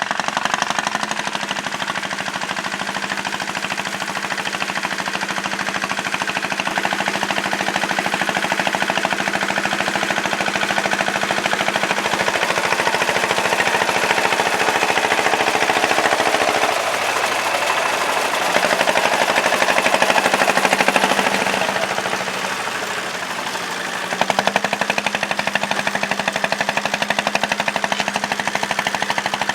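Tractor engine running steadily with a rapid knocking beat. It eases off briefly about three-quarters of the way through, then picks up again.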